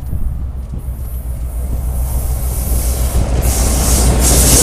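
CSX diesel freight locomotive approaching and passing close by: a steady low engine drone growing louder, then a loud rushing noise from about three seconds in as the locomotive goes past.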